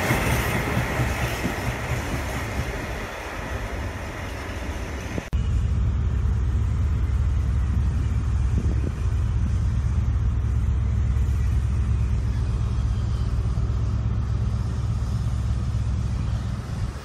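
Freight wagons rolling past on the rails, their noise fading away. Then a steady low rumble as a diesel freight locomotive approaches down the line.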